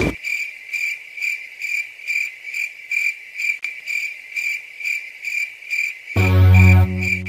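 Cricket chirping sound effect, a high chirp about twice a second, starting abruptly. About six seconds in, a louder low buzzing drone joins it and holds for under a second.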